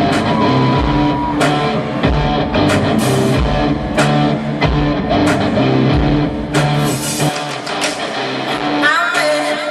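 Loud live rock band music with heavy drum hits and guitar, recorded from within a concert crowd; the deep bass drops out about seven seconds in.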